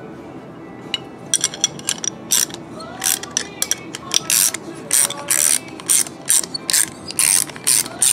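Half-inch ratcheting wrench clicking in quick repeated strokes, two or three a second, starting about a second in, as it cranks a trailing-arm bracket's adjuster bolt down until the adjuster bottoms out.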